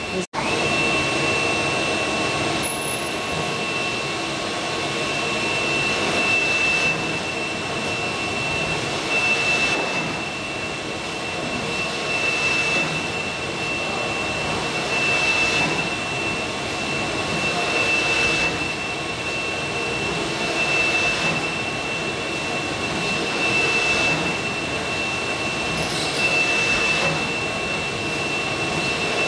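High-speed delta pick-and-place top loader robot running continuous cycles: a steady rushing machine noise with a constant high whine, swelling and easing about every three seconds.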